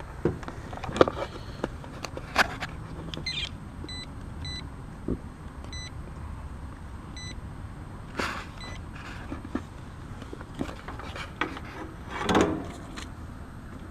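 Clicks and rustling of meter probes being worked on the terminals of a 45/5 dual run capacitor, with a few short high beeps from a multimeter a few seconds in, during a capacitance check.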